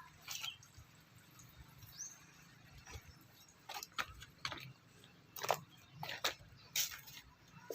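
A string of about a dozen short, irregular clicks and scrapes over a faint low hum.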